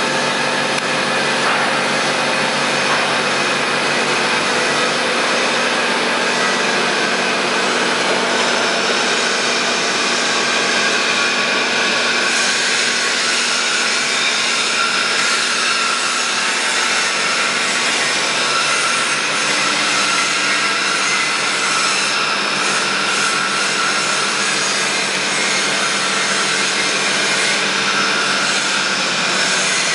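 Castel CNC table-type horizontal boring machine running: a loud, steady mechanical noise with several held tones.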